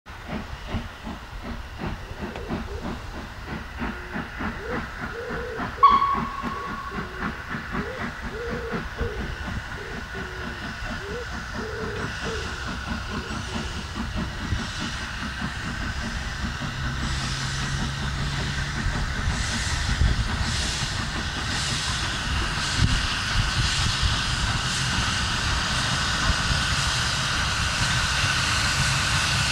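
LNER D49 three-cylinder 4-4-0 steam locomotive 'Morayshire' approaching with a passenger train. Its exhaust beats grow steadily louder as it nears. A short whistle note sounds about six seconds in.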